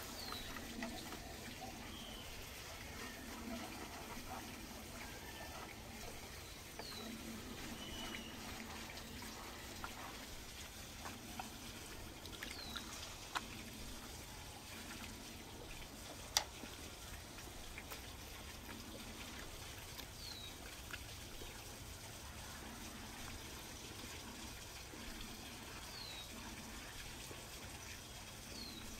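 Wet trickling and sloshing of an oil-and-paprika marinade being poured and mixed, then poured over raw whole chickens and rubbed in by hand. A bird's short falling call repeats every five or six seconds, and there is one sharp click about halfway through.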